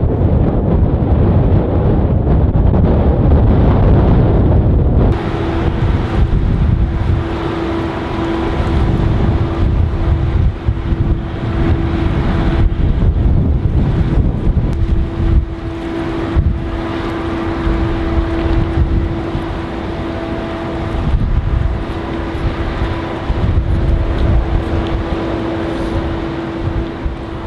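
Wind buffeting the microphone with a low rumble. About five seconds in it gives way to a small wooden fishing boat's engine running with a steady hum, over wind and water noise.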